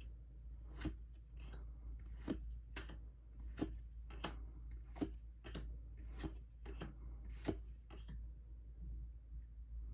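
Pokémon trading cards being handled: a series of short, light snaps, about two a second, as cards are flicked through one after another, stopping near the end.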